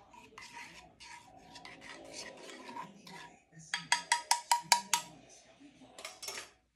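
Metal utensil stirring and scraping melted garlic butter in a small saucepan, in rough strokes. About halfway through comes a quick run of about eight ringing taps, the utensil knocked against the pan's rim, with a couple more taps near the end.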